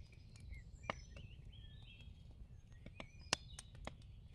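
Faint outdoor ambience of birds chirping softly, with a few sharp clicks, the loudest a little over three seconds in.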